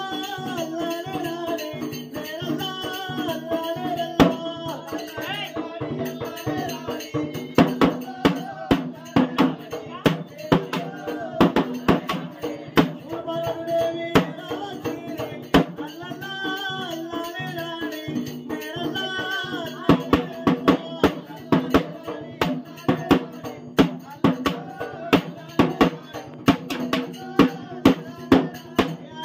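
Telugu devotional folk singing through a microphone, accompanied by a large double-headed drum beaten with a stick. The drum strokes become loud and frequent about a quarter of the way in.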